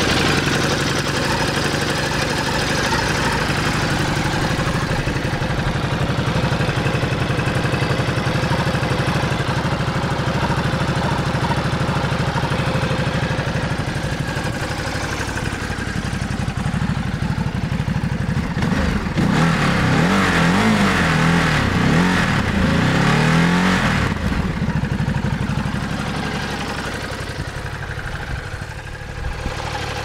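Ducati DesertX's 937 cc Testastretta V-twin engine running, at first a steady, even note. From about 19 to 24 seconds in its speed rises and falls with the revs, then it settles to a steadier note again.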